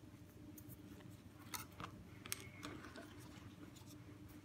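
Faint, quiet handling sounds of ribbon being pleated by hand: a few small clicks and taps spread through the middle, over a steady low room hum.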